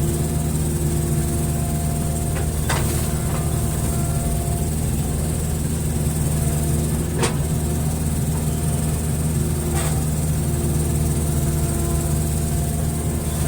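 Hitachi excavator's diesel engine running steadily, with a faint hydraulic whine coming and going and a few sharp knocks, about three, seven and ten seconds in.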